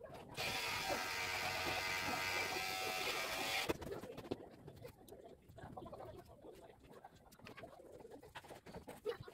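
Electric hair clipper buzzing steadily for about three seconds, then switched off. Faint scattered clicks follow.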